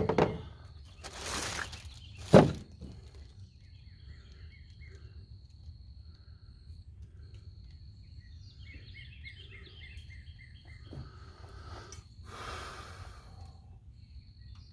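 Quiet outdoor background with one sharp knock about two and a half seconds in, just after a soft rushing noise. Birds chirp in a quick run of repeated notes near the middle, over a faint steady high tone.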